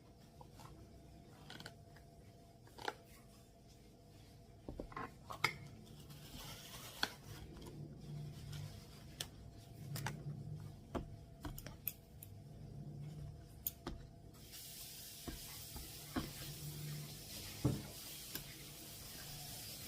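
Dishes and utensils being handled while a cup ramen is prepared: scattered light clinks, taps and knocks. About two-thirds of the way through, a steady hiss sets in and carries on.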